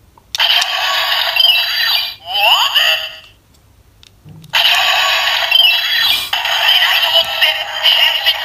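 Kamen Rider Woz Miride Watch toy playing its electronic voice and music through its small speaker, thin and tinny with no bass. One round lasts about three seconds, then after a short pause and a faint knock a second round starts, with the voice calling "Kamen Rider Woz!".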